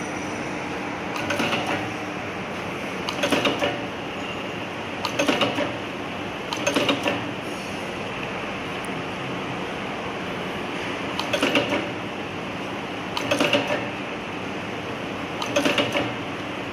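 Rigid box corner pasting machine cycling seven times, each cycle a short rapid clatter of about half a second as its taping head runs on a box corner. A steady machine hum continues between cycles.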